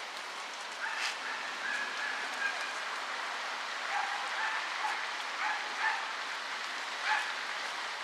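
Steady outdoor hiss with several short, high chirping calls over it, the clearest about a second in and again between four and six seconds.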